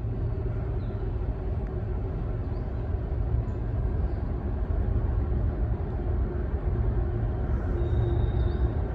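CSX freight train led by GE ES44AC-H diesel locomotives approaching and passing: a steady low diesel and wheel rumble that grows slowly louder. A faint high thin tone comes in near the end.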